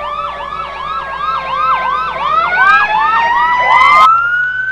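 Fire engine siren sound effects layered together: a fast yelping siren sweeping up and down about three times a second over a steady wailing tone that climbs in pitch. Just before four seconds there is a short hiss, the yelping cuts off, and only the rising wail goes on.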